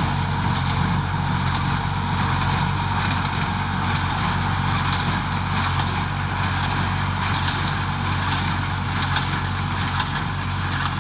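A horse-drawn hay baler running steadily. Its engine makes an even drone, with light clatter from the baling mechanism.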